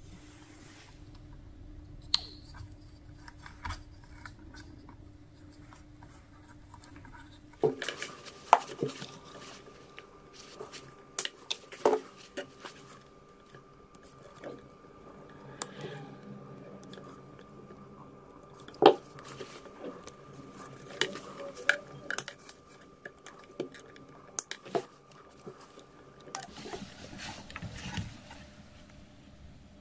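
Hand-tool and wire-handling noises: sharp clicks and snaps from side cutters working on a power cable, scattered among soft rustles and scrapes of wires. One snap near the middle is the loudest. A faint steady hum runs under the first few seconds.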